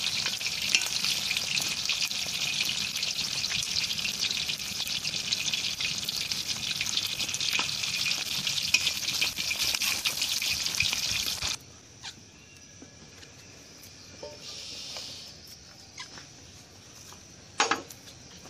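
Tilapia pieces frying in hot oil in a large iron wok: a loud, steady sizzle with a couple of sharp clicks. The sizzle cuts off abruptly about two-thirds of the way through, leaving a quiet outdoor background with one brief click near the end.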